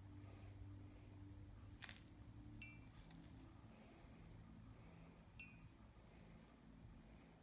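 Near silence over a faint steady hum, broken by a soft tap and two short, high metallic clinks about two and a half and five and a half seconds in, as a cat bats at a fuzzy wand toy.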